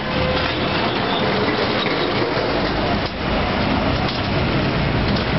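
Steady city street noise at a level crossing: traffic and a crowd of pedestrians and cyclists moving across.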